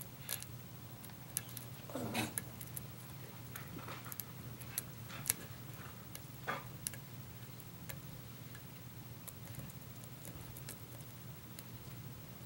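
Faint, irregular metallic clicks and ticks of lock picks and a tension tool working the serrated pins of a pin-tumbler challenge lock held in a vise, over a steady low hum.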